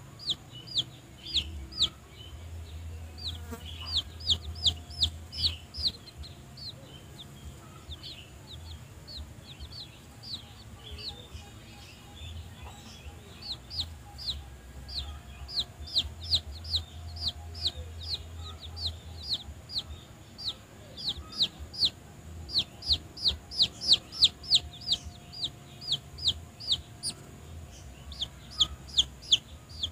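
A chick peeping: a steady string of short, high, falling peeps, two or three a second, in runs that thin out for a while in the middle and grow loudest near the end.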